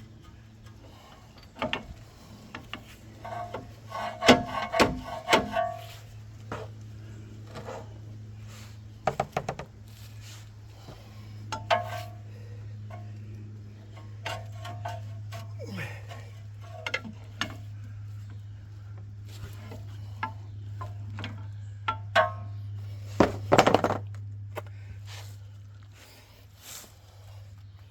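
Hand tools and metal parts clinking and knocking while a front strut is bolted into a truck's suspension, with scattered clicks, a few ringing metallic clanks and some harder knocks near the end, over a steady low hum.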